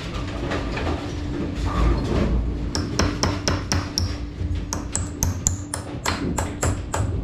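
Hammer tapping a roll pin into a pin from an AMF 82-30 pinsetter's front roller assembly: sharp metal strikes with a ringing tone, starting about three seconds in at roughly three a second, then a quicker run of taps.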